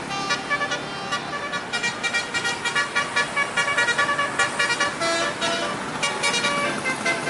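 Bus 'telolet' horn, a multi-tone musical horn, playing a quick tune of short tooting notes, several a second.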